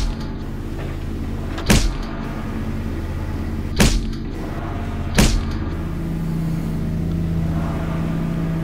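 A steady low droning hum with four sharp bangs, at irregular gaps of one and a half to two seconds. A higher hum tone joins in after the last bang.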